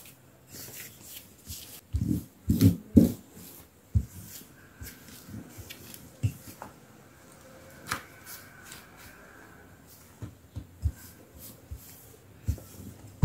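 Dough being worked and stretched out on a floured tabletop: scattered soft thumps, knocks and rubbing, loudest in a cluster about two to three seconds in, with single knocks near four and eight seconds.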